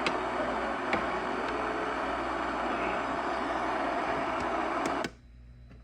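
Steady hiss of static from a weather radio receiver, with a faint click or two. The static cuts off abruptly about five seconds in.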